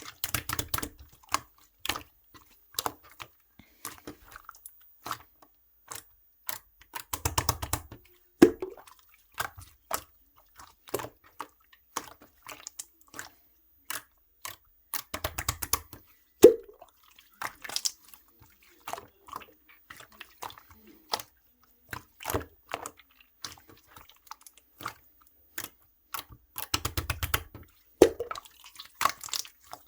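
Hands squeezing, stretching and pressing opaque slime: wet sticky clicks and small pops from trapped air, with denser bursts of crackling squelches every several seconds.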